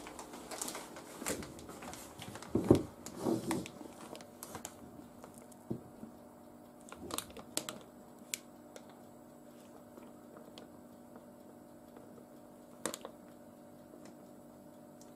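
Clear plastic piping bag rustling and crinkling as it is opened and handled, with scattered soft clicks and knocks, busiest in the first few seconds. After that, mostly quiet with a faint steady hum and a few light ticks while batter is poured into the bag.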